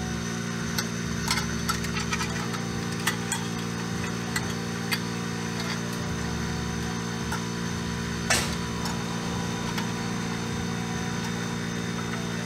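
Scattered light clicks and taps of hand tools and drum-brake hardware being handled, the sharpest about eight seconds in, over a steady low hum.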